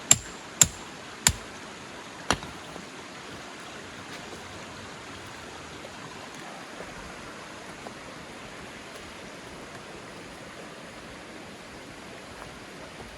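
Metal tent peg being hammered into the ground: four sharp ringing strikes in the first couple of seconds, then a steady even hiss.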